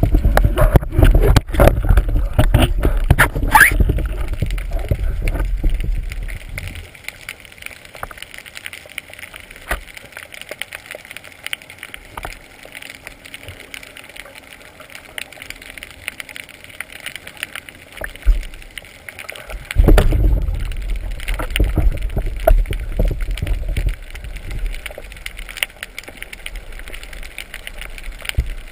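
Underwater noise from a speargun-mounted camera: water rushing and bubbling over the gun, with knocks and rattles. It is loud for the first several seconds and again for a few seconds about two-thirds through, and quieter in between.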